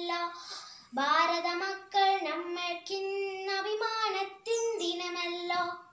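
A young girl singing a Malayalam patriotic song solo, with no accompaniment, in held notes that step up and down; she stops just at the end.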